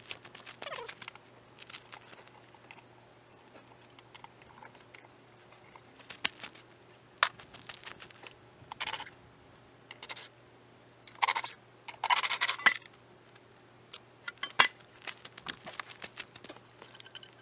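Scattered scrapes, clicks and light knocks of hands at work or handling, loudest about eleven to thirteen seconds in, over a faint steady hum.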